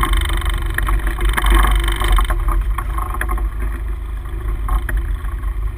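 Steady low rumble of wind on the microphone and the idling sport-fishing boat at sea, with a few light knocks of handling on deck.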